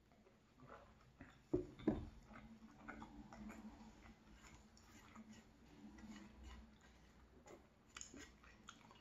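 Metal travel mug set down on a wooden tabletop with two sharp knocks about a second and a half in, after a sip of hot chocolate. Then faint mouth clicks and lip smacks over a low hum.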